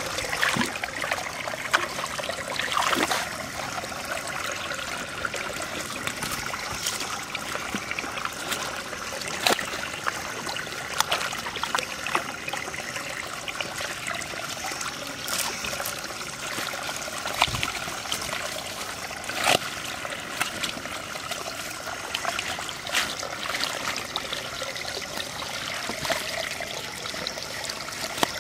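Hands sloshing and scooping in shallow muddy water, pushing it through a fine mesh net: steady trickling and running water broken by frequent irregular splashes.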